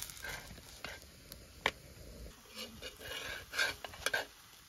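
Metal tongs lightly clicking and scraping against a tawa as a stuffed paratha is turned over, a few sparse sharp clicks with short scratchy rustles between them.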